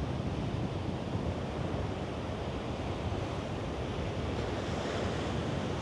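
Ocean surf washing in, with strong wind buffeting the microphone: a steady rushing noise.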